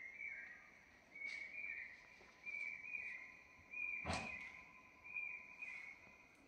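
Repeated short two-note chirps from a night-calling animal, about one call a second. A single sharp knock about four seconds in is the loudest sound.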